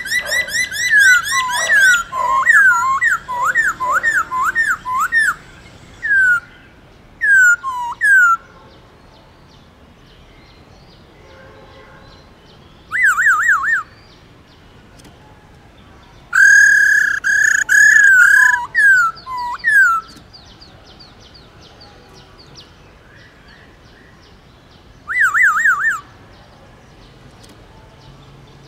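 Black-throated laughingthrush singing loud, clear whistled phrases. It opens with a fast run of down-slurred notes, then gives a few single notes, then short bursts of rapid warbling trills and held whistles with pauses of several seconds between them.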